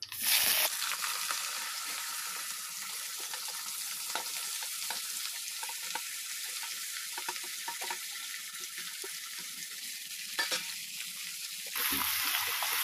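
Cut potato sticks dropped into hot mustard oil in a heavy-bottomed kadhai, sizzling. It starts with a sharp burst as the first handful hits the oil, then settles into a steady hiss with scattered small crackles, growing louder again near the end.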